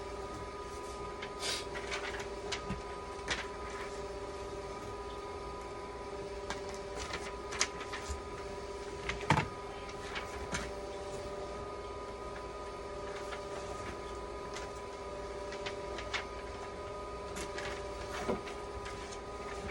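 A steady mechanical hum of several even tones, with scattered clicks and light knocks over it; the loudest knock comes about nine seconds in.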